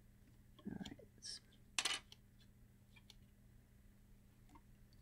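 Plastic parts of a CD player mechanism being handled by hand. There is a dull bump, then a short scrape, then a sharp click about two seconds in, the loudest sound, followed by a few faint ticks.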